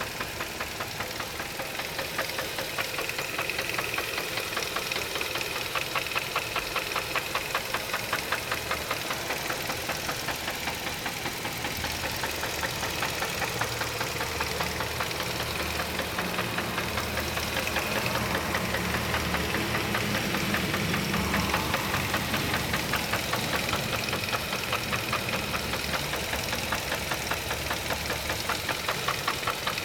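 2002 Chevrolet Cavalier engine running with a steady, fast, rhythmic knocking, a little louder about two-thirds of the way through. The knock is a fault whose cause the owner does not know.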